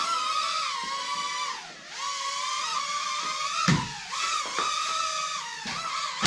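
Small toy drone's propeller motors whining at a high, steady pitch, the whine wavering and dipping briefly about two seconds in and again near four seconds.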